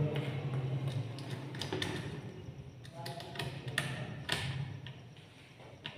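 Small irregular clicks and taps of a screwdriver working a screw terminal on a switch board, fastening a wire, with a few louder clicks near the end.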